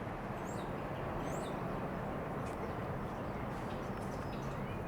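Steady outdoor background rumble with a few high bird chirps in the first second and a half.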